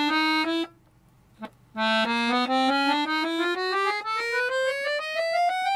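Victoria chromatic button accordion playing a rising chromatic scale, note by note in even steps. A short opening run breaks off under a second in, and after a brief pause with a single click the scale starts again and climbs steadily to the end.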